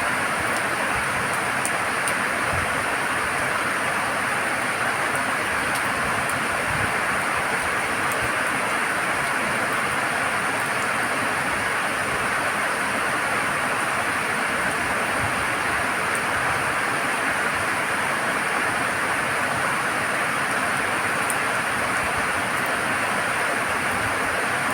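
Steady rain falling, an even hiss with a few scattered drop ticks; no thunder is heard.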